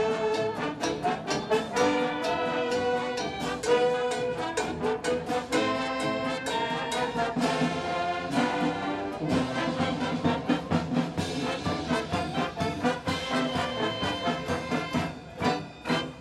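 A band playing an instrumental passage led by brass horns, with a steady beat.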